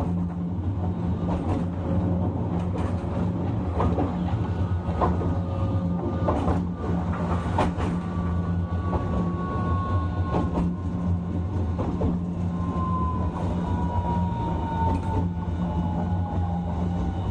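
Hiroshima Electric Railway 1000-series 'Green Mover LEX' low-floor tram heard from onboard while running: a steady low hum with the wheels clicking over rail joints now and then. Through the second half a high whine, most likely from its Toyo IGBT-VVVF traction equipment, slowly falls in pitch.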